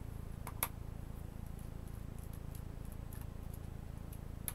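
Faint ticks and clicks of a small screwdriver turning screws out of a Chromebook's plastic bottom case, with a sharper click about half a second in and another near the end, over a steady low hum.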